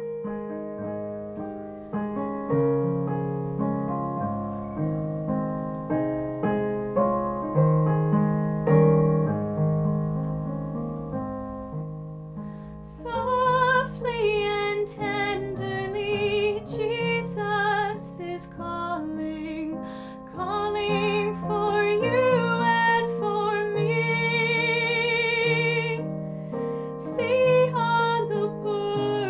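A piano plays a slow introduction, and about thirteen seconds in a woman's voice comes in, singing a slow melody with vibrato over the piano accompaniment.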